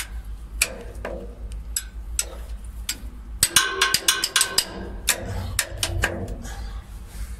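Steel wrench clinking and knocking against the bolts and steel bracket of a crane boom's inductive sensor as its mounting is loosened and adjusted. Scattered sharp clicks, with a quick run of ringing metallic clicks about halfway through, over a steady low hum.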